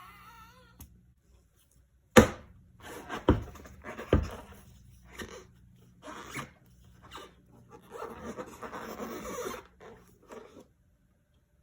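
Handling noise from unboxing: three sharp knocks or clicks about a second apart, then scattered lighter clicks and a stretch of rustling that stops shortly before the end.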